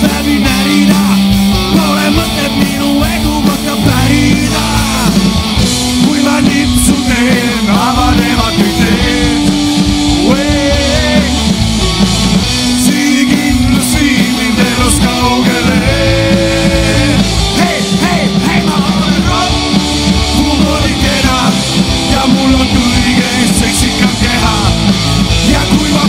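Live rock band playing loud and steady: electric guitar, bass guitar and a drum kit, with a man singing lead into the microphone.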